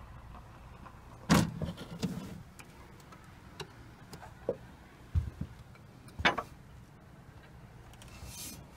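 A handful of sharp knocks and clunks at irregular intervals, the loudest about a second in, over a faint low hum.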